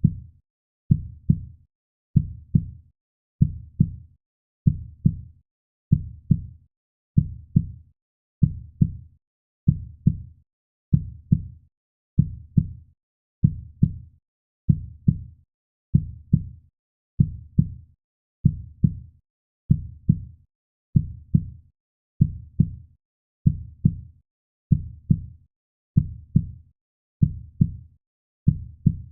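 Heartbeat sound: a steady, slow lub-dub, each beat a low double thump, repeating about once every 1.3 seconds.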